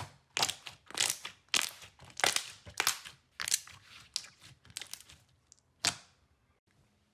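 Glossy slime being squeezed and pressed by hand, letting out sharp wet pops and crackles of trapped air about twice a second. The pops stop about six seconds in.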